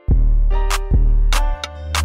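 Background beat music: deep bass notes each held about a second under sharp drum hits and a steady melody.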